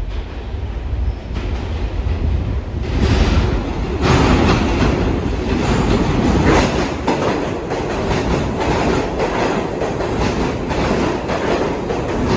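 R62A subway train running on the tracks: a steady low rumble with the rapid, irregular clatter of wheels over the rails, growing louder about three seconds in.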